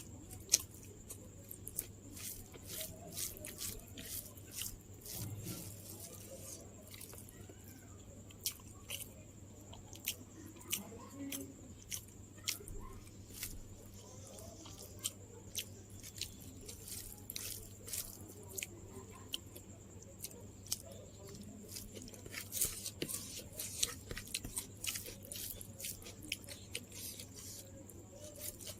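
A person chewing and crunching food close to the microphone, with many sharp crisp clicks and wet mouth sounds, busiest near the end. A faint steady hum runs underneath.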